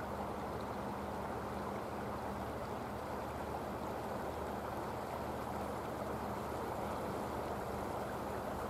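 Steady outdoor rushing noise with a faint, even low hum beneath it.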